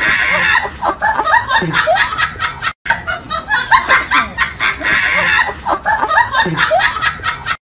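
People snickering and giggling in quick, overlapping bursts of laughter, breaking off for an instant about three seconds in.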